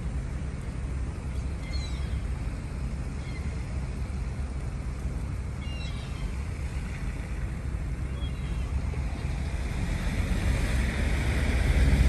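Steady low rumble of outdoor background noise, wind and road traffic, swelling over the last couple of seconds as a vehicle draws near. A few faint, short high chirps come through now and then.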